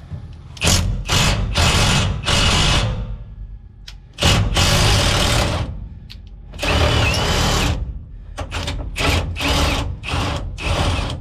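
A power tool run in short, repeated bursts, with two longer runs in the middle, typical of undoing fasteners while lowering a truck's fuel tank.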